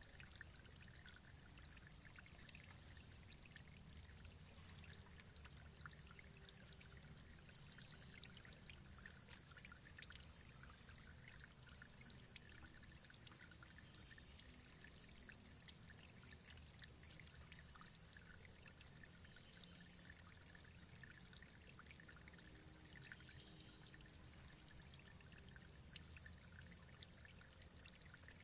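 Running water trickling and splashing steadily, a faint, even rush dotted with many small drip-like ticks.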